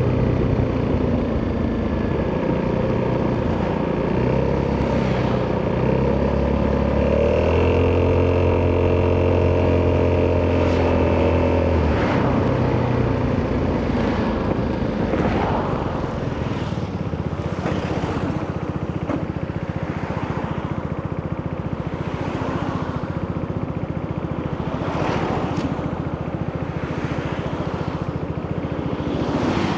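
Italjet Dragster 200's single-cylinder four-stroke engine running through an Akrapovic exhaust while riding. It holds a steady note for several seconds, then drops in pitch about halfway through and runs lower and quieter.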